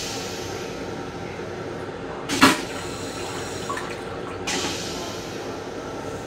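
Water running and dripping into the stainless steel bowl of an M7 railcar toilet over a steady background noise, with one sharp clunk about two and a half seconds in.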